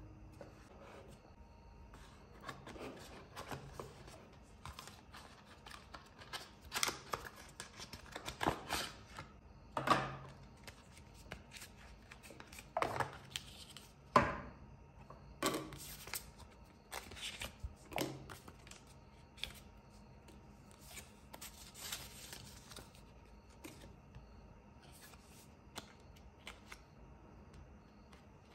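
Paper leaflets and cards from a smartphone box rustling, sliding and being shuffled by hand, with scattered light taps and knocks of card and plastic against the box. The handling thins out over the last several seconds.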